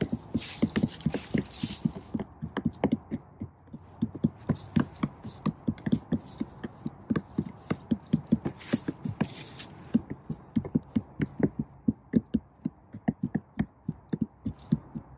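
Hens pecking at the top of an upturned black plastic tub: a quick, irregular run of knocks, several a second, with a short lull about two-thirds of the way through.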